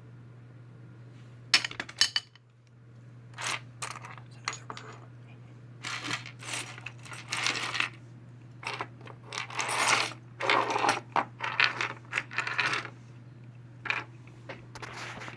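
Small hard figurines clicking and rattling against each other and the table in irregular clusters as they are picked through and sorted by hand, over a steady low hum.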